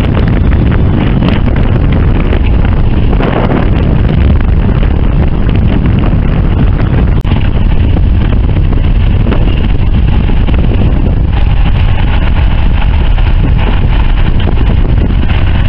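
Wind buffeting the camera microphone out on open water: a loud, steady rumbling noise.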